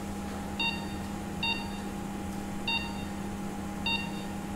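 Operating-theatre patient monitor giving its short pulse-oximeter beep about once a second, four times, over a steady hum of theatre equipment.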